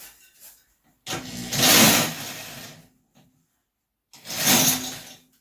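Drill run twice in bursts of about two seconds and one second, driving a socket to turn the snowblower engine over; the socket is the wrong size for the nut.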